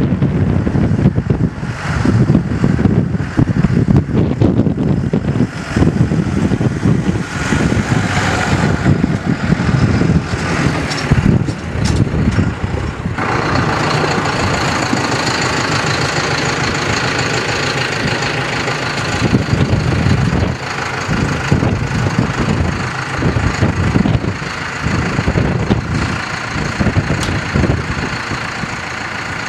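Landini Vision 105 tractor engine running, with gusts of wind on the microphone through the first half. About halfway in the sound changes to a steadier engine drone with a hiss on top.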